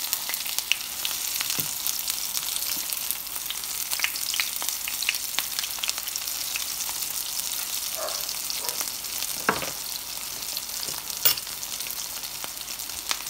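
Potato cakes sizzling steadily in hot oil in a frying pan. Scattered clicks and scrapes come from a spatula and fork as the cakes are turned, with one sharp clack near the end.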